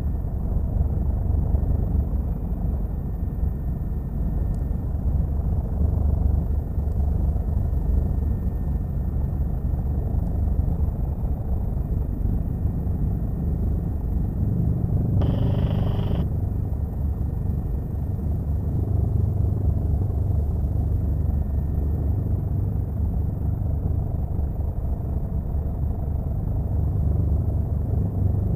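Helicopter in flight heard from inside the cabin: a steady low drone of rotor and engine. About halfway through, a brief electronic tone sounds for about a second.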